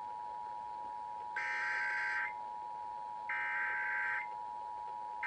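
Emergency Alert System two-tone attention signal sounding steadily, with bursts of the buzzing EAS digital data code laid over it about a second apart: two full bursts and a third starting at the end.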